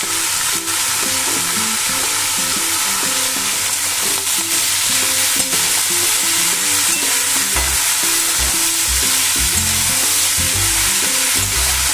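Bottle gourd strips sizzling in hot oil in a metal kadai as they are stirred and tossed with a metal spatula, with a few clicks of the spatula against the pan.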